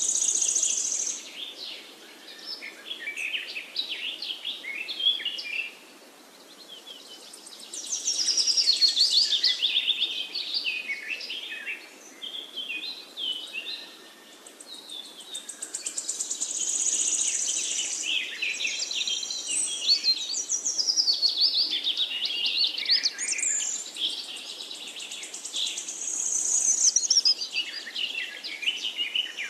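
Birds chirping and singing in a busy chorus of quick, high, rising-and-falling notes and trills that swell and fade in waves.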